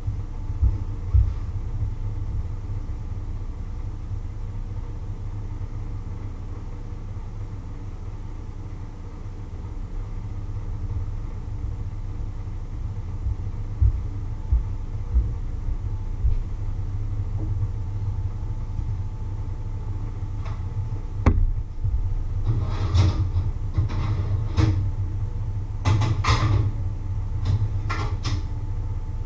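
A steady low rumble runs underneath. About two-thirds of the way through, a string of sharp knocks and clatter starts as kitchen things are handled near the oven.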